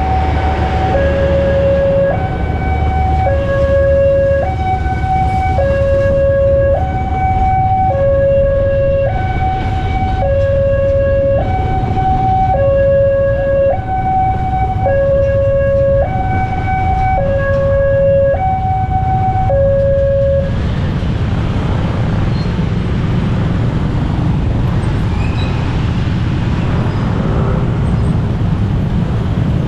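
Railway level-crossing warning alarm from the pole-mounted speaker, a two-tone electronic chime alternating high and low about once a second, over the low rumble of a passenger train passing. The alarm stops about two-thirds of the way through, leaving the engine noise of motorcycles and cars waiting at the crossing.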